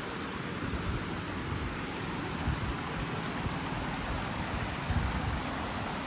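Shallow rocky stream and small waterfall rushing steadily, a continuous hiss, with wind buffeting the microphone in uneven low rumbles.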